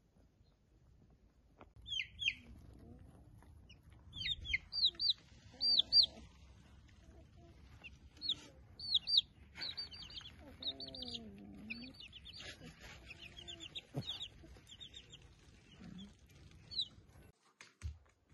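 Newborn Bernese mountain dog puppies squeaking: short, high-pitched squeaks in quick runs, on and off for most of the stretch.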